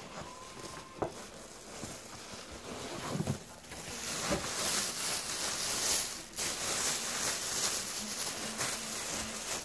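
Clear plastic bag crinkling and rustling close to the microphone, growing louder about four seconds in, with a few soft knocks before it.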